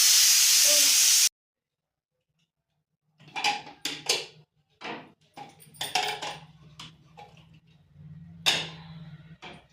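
Pressure cooker letting off a loud hiss of steam for about a second, ending abruptly. After a short silence come scattered clatters and knocks of kitchen utensils over a low steady hum.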